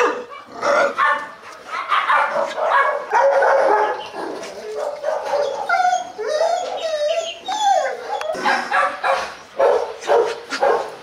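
Hmong bobtail dogs barking and yipping in quick succession, with a stretch of gliding whines in the middle before the barking picks up again.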